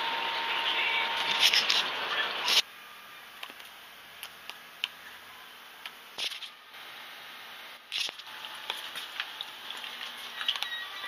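Handling noise from a hand-held camera: scattered clicks and taps over a quiet background. An even hiss at the start cuts off abruptly about two and a half seconds in.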